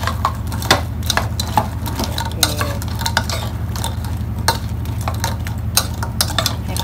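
Metal spoon tossing crispy fried snakeskin gourami pieces with sliced shallots and dressing in a bowl: irregular clinks and scrapes of the spoon against the bowl and the crunchy pieces.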